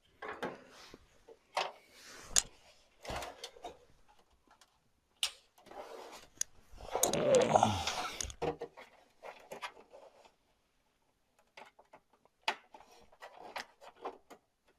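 Clicks and knocks of hands working inside a desktop PC case, unplugging drive cables and handling a hard drive, with a longer scraping stretch about seven seconds in.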